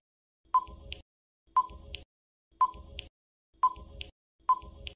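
Quiz countdown timer sound effect: five short ticks, one each second, each with a brief ring that fades quickly.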